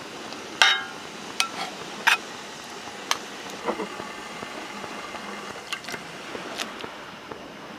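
Cookware clinking: a handful of sharp metal-and-glass taps of a pot and utensils at a camp stove. The first, about half a second in, is the loudest and rings briefly. A steady hiss runs underneath.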